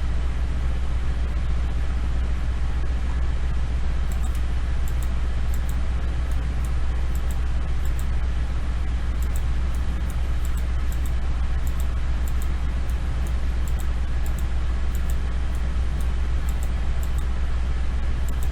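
Steady low hum and room noise picked up by a desk microphone, with faint irregular clicks of a computer mouse.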